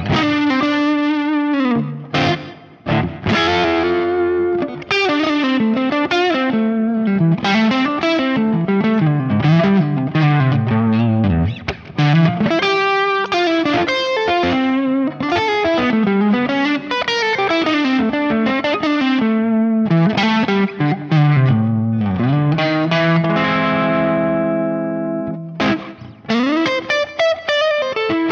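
Electric Telecaster with vintage '50s-style single-coil pickups, played on the neck pickup through a Kemper amp profile with a crunchy overdriven tone and delay. Single-note melodic runs climb and fall, with a held chord ringing out about three quarters of the way through.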